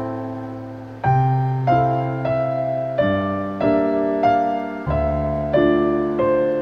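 Background piano music: a gentle melody of notes and chords struck about every half second to a second, each dying away.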